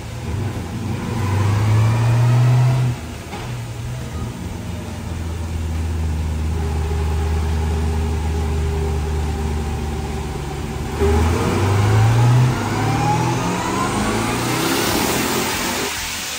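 Twin-turbo LS V8 on a chassis dyno for the final pull at 14 psi of boost. The engine runs steadily at low revs for about ten seconds, then climbs under full throttle, rising in pitch with a rising turbo whine. A loud rush of air builds near the top of the pull.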